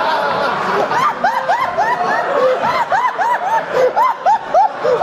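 People laughing at a joke. One loud, high laugh of quick repeated 'ha's, about four a second, stands out from about a second in.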